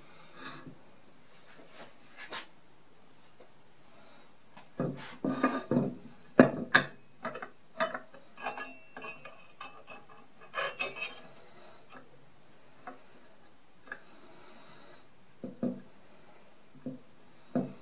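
Metal clinks, clicks and knocks as a small saw vise is worked on its clamp and a small saw's blade is set into its jaws, the busiest run of them about five to seven seconds in, with more around eleven seconds and a few near the end.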